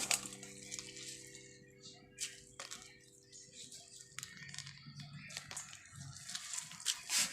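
Pounded snake plant leaves being squeezed by hand to wring out their juice: faint wet squishing and crackling with scattered small clicks. A faint ringing tone fades out about halfway through.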